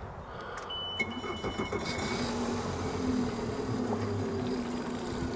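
Mercury FourStroke outboard started from the helm. Short electronic beeps sound in the first two seconds, the engine cranks and catches about a second in, and it then idles steadily.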